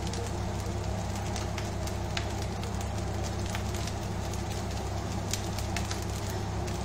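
Fried rice crackling and sizzling in a wok over a lit gas burner, with scattered sharp pops over a steady frying hiss and a constant low hum underneath.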